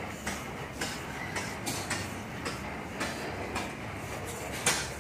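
Antique steam traction engine running unloaded, its exhaust chuffing out the stack about twice a second over a steady mechanical clatter of the valve gear and crank.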